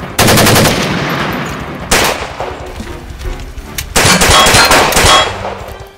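Bursts of rapid automatic gunfire, movie sound effects: one just after the start that fades away, a short one about two seconds in, and a longer, loud burst from about four seconds that lasts about a second.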